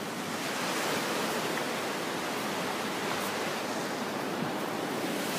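Ocean surf washing up the beach at the water's edge: a steady, even hiss of breaking and receding waves.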